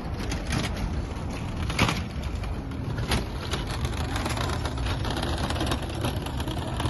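Steady rumble of street traffic, with a couple of sharp knocks about two and three seconds in.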